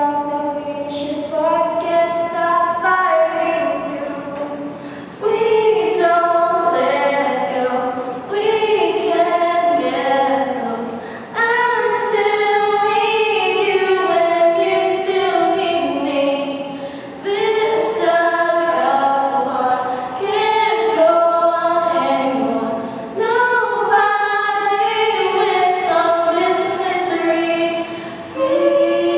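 Two women singing a song together, unaccompanied, in sung phrases of a few seconds each.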